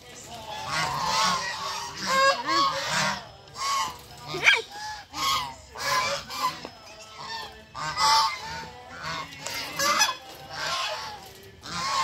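A penned flock of white domestic waterfowl honking over and over, with many calls overlapping and one loud call about four and a half seconds in.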